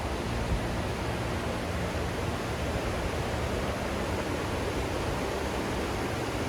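Steady rushing of a waterfall and creek running high after rain.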